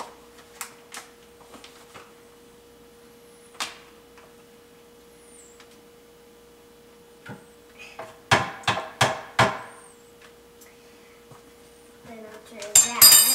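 A metal spoon scooping powder and knocking against the bag and blender jar. There are a few light taps at first, a quick cluster of five or six knocks about eight seconds in, and a louder ringing clink near the end. A faint steady hum runs underneath.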